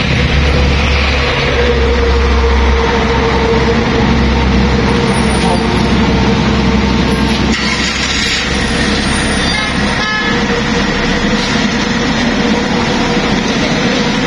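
Loud street traffic noise: a steady rumble of passing vehicles with a constant hum.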